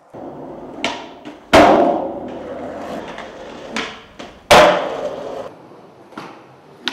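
Skateboard on concrete: a sharp clack, then a hard slap of the board landing about 1.5 s in, then rolling wheels. The same happens again about 4.5 s in, and lighter clacks follow near the end.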